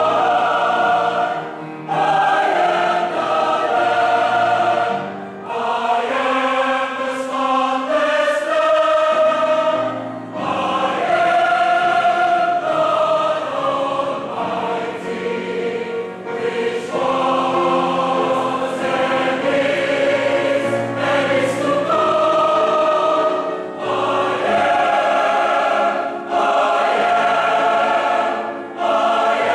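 Large mixed choir singing in parts, held notes in long phrases with brief dips between them.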